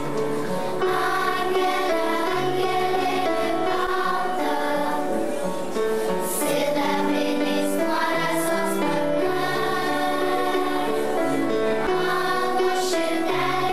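Children's choir singing a song, the voices holding notes that change from one to the next.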